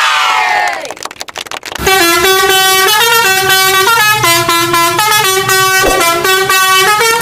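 Multi-tone 'telolet' horn playing a tune of short stepping notes, starting about two seconds in. Before it, several falling whistle-like tones and a quick run of clicks.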